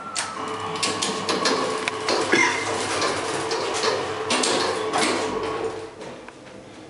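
Otis passenger lift's sliding doors closing after a floor button is pressed: a steady door-motor hum under rattling and clicking of the door panels, which stops about six seconds in.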